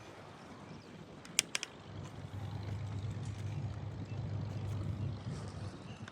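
Spitfire T.9's Rolls-Royce Merlin V12 engine running at low power, heard as a distant low rumble that grows stronger about two seconds in. A couple of sharp clicks come about a second and a half in.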